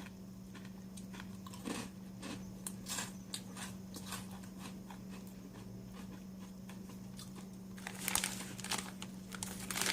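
Someone bites and chews dry, uncooked rye ramen noodles: irregular crisp crunches and crackles, with a louder flurry near the end. A steady low electrical hum runs underneath.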